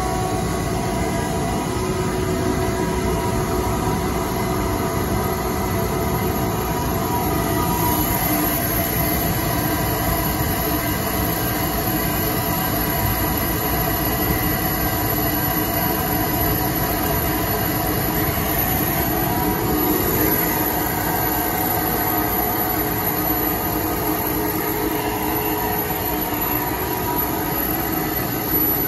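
A 50 hp Ingersoll Rand rotary screw air compressor running loaded and building line pressure. It makes a steady, loud drone with several whining tones, and a faint high whine grows stronger about eight seconds in.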